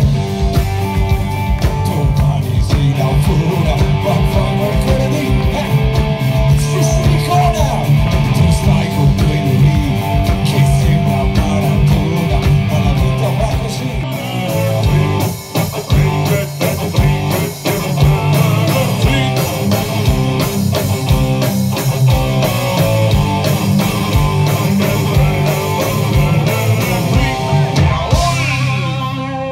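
Live punk-rock band playing loudly: electric and acoustic guitars over a steady drum beat with a man singing, with a few short stops in the rhythm midway and the song winding down near the end.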